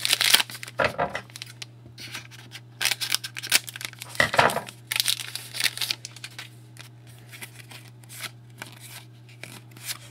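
Crinkling and tearing of a trading-card pack wrapper and rustling of cards being handled, in irregular bursts that are loudest at the start and again a few seconds in.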